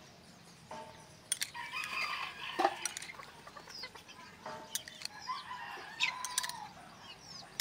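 Chickens clucking and a rooster crowing, in two bouts: one about a second and a half in and another about six seconds in.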